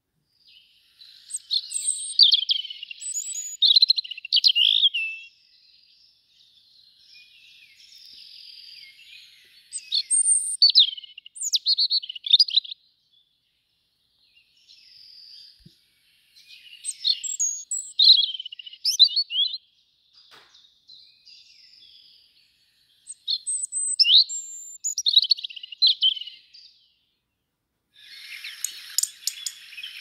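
European robin singing: phrases of high, quickly changing warbled notes, with short pauses between groups. Near the end a steadier, denser hiss sets in.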